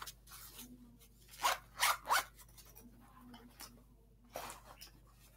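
Zipper on a bag being pulled in a few short, quick strokes, then once more after a pause.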